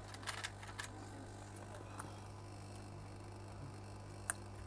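Light clicks and taps of small tools and circuit boards being handled on a repair bench: a quick cluster in the first second, a single tick about two seconds in and one sharp click near the end, over a steady low electrical hum.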